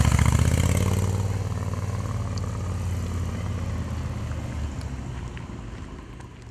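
1973 Moto Guzzi Eldorado's 850 cc transverse V-twin running through aftermarket torpedo mufflers as the bike passes close by and rides away, its exhaust note loudest at the start and fading steadily.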